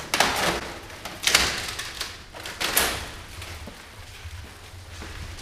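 Clear plastic stretch wrap being pulled and torn off a machine cabinet: three rustling, crinkling bursts in the first three seconds, then quieter handling.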